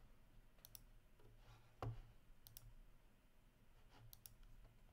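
Near silence with faint computer mouse clicks in quick pairs, three times about every second and a half to two seconds, and one soft thump about two seconds in, over a low steady hum.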